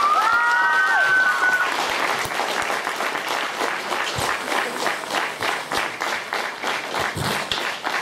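Audience applauding after a band's song, with a few whistles in the first second and a half; the clapping thins out and dies down toward the end.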